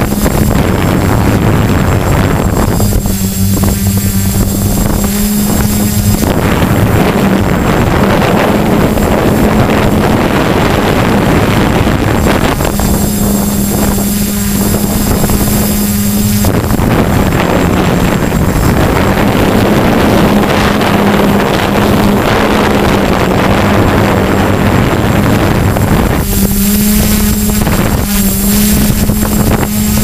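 DJI F450 quadcopter's electric motors and propellers humming steadily, heard from on board, with strong wind buffeting the microphone. The pitch of the hum shifts slightly several times as the throttle changes.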